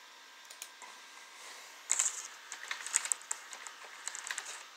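Light, irregular clicks and rustling beginning about two seconds in, from working a computer's mouse and keyboard while moving files.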